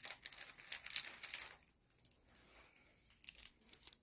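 Faint rustling and crackly clicks, like a phone being handled and carried, thickest in the first second and a half, with a few more clicks near the end.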